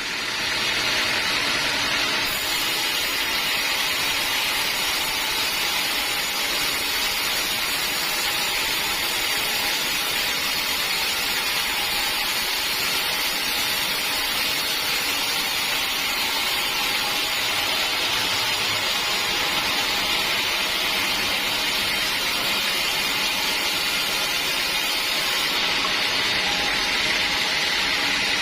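Sawmill running steadily while sawing through a teak log, a constant high-pitched rushing noise. The top of the sound brightens about two seconds in and eases again near the end.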